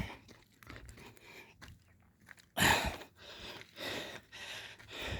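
Scattered crunching and scuffing sounds with a sharp knock at the start, and a loud breathy rush a little before three seconds in, typical of a hiker's heavy breath and handling or footing on a rocky hilltop.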